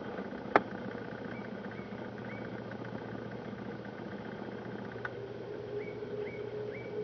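Distant jet engines of a taxiing Airbus A350-900 (Rolls-Royce Trent XWB) at low thrust: a steady hum. A sharp click comes about half a second in, and short high chirps sound three times early and three times near the end.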